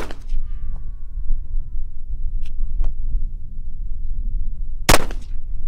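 Glock 19 Gen 4 9mm pistol firing slow, deliberate aimed shots: the fading tail of one shot at the start, then a single sharp shot with a short echo about five seconds in. A steady low rumble runs underneath.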